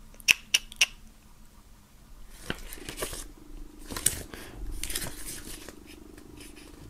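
Pages of a paper CD booklet being leafed through: three sharp clicks in the first second, then paper rustling in several bursts as the pages are flipped.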